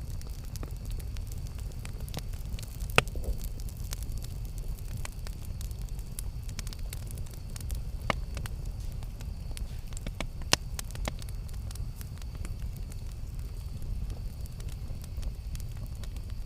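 Campfire burning: a steady low rumble with scattered sharp crackles and pops. The loudest pops come about three seconds in and again about ten seconds in.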